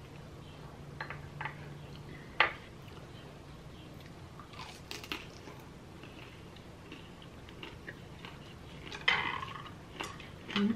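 A person chewing a chicken-and-vegetable gyoza dumpling, with scattered wet mouth clicks and smacks and a sharp click about two and a half seconds in.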